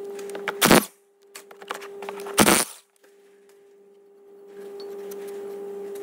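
Impact driver undoing the two 18mm bolts of a Ford C-Max's front brake caliper carrier: two short bursts about two seconds apart, each freeing a bolt.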